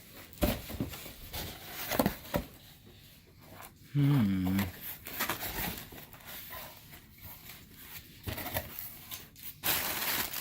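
Cardboard box and packing material being handled and torn open, with scattered rustles, rubs and small knocks. About four seconds in, a brief low voice-like sound stepping down in pitch, under a second long, is the loudest thing.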